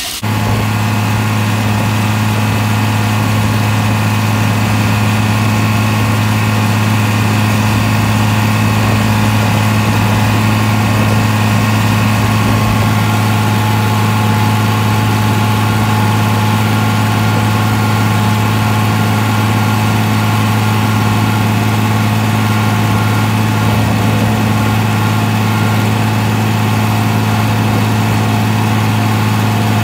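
Tractor engine running at a steady speed under planting load, heard from the operator's seat: a constant low drone with no change in pitch.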